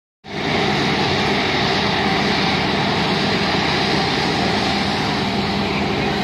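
Airbus A330 jet airliner's engines running steadily as it taxis, a constant low hum with a broad rushing noise over it.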